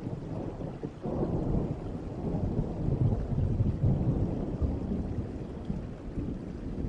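Recorded thunderstorm: a long, low roll of thunder swells about a second in and rumbles on for several seconds over steady rain.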